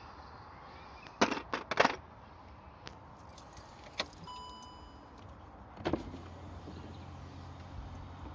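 A quick run of sharp metallic clatters, as of keys or small tools being handled, then a lone click, a short electronic beep, a knock, and a low steady hum that sets in near the end.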